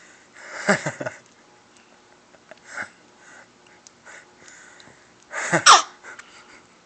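A baby's breathy mouth sounds made with her tongue out, in three bursts that fall in pitch: one about half a second in, a short one near three seconds, and the loudest, a double burst, about five and a half seconds in.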